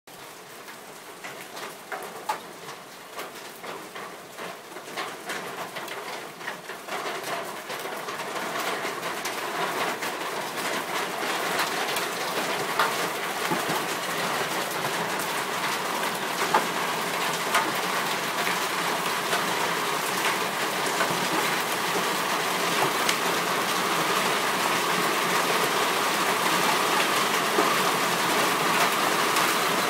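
Hailstones falling and striking the ground and surfaces, at first as scattered separate clicks of single stones, thickening over the first ten seconds into a dense, steady downpour of hail that stays loud.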